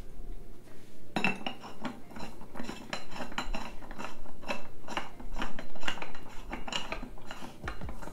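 Chrome metal sections of a Vivo Home pole-dancing pole clinking and knocking together as they are handled and screwed together by hand: a quick, uneven run of small metallic clicks and rattles starting about a second in.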